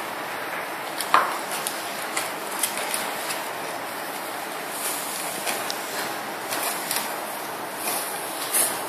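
A plastic tub handled and tipped over a paper funnel while powder is poured, giving scattered small plastic knocks and clicks, with a clearer knock about a second in, over a steady hiss.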